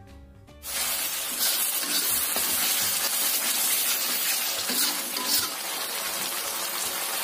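Blended chilli, shallot and garlic paste sizzling loudly in hot oil in a steel wok, a metal spatula stirring and scraping through it; the paste was thinned with water and is being fried until that water cooks off. Background music ends just before the sizzling starts, under a second in.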